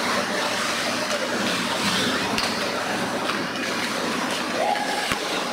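Ice hockey rink during play: a steady wash of skates scraping and carving the ice mixed with spectator murmur, with a brief call near the end.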